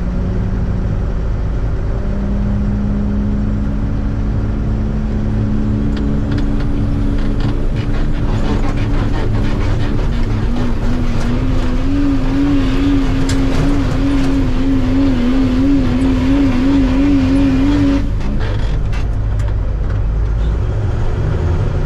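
Super stock diesel 4x4 truck engine running hard under load on a pull. Its pitch climbs slowly and wavers over the second half, then drops away about eighteen seconds in, leaving a low rumble.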